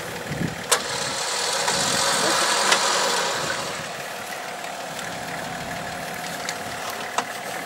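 Nissan Patrol engine running at low revs while the 4x4 crawls up a steep rocky slope on a taut front cable, swelling louder for a couple of seconds about two seconds in. A few sharp knocks stand out over it.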